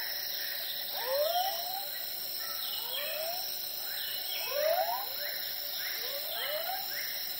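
Night-time animal calls: a short rising note, often two in quick succession, repeats roughly every second and a half over a steady high-pitched hum.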